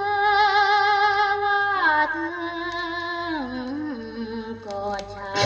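A woman singing on an old Thai record, played through a Telefunken valve radio. She holds one long note with vibrato for about two seconds, then slides down through a slow falling phrase that ends near the close.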